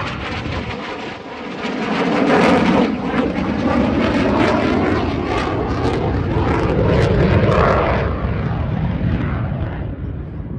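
Eurofighter Typhoon's twin EJ200 turbofans at high power on a display pass: loud jet noise with a crackle through it. It swells about two seconds in and fades near the end as the jet moves away.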